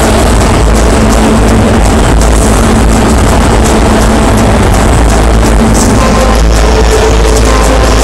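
Loud music with a heavy, steady bass.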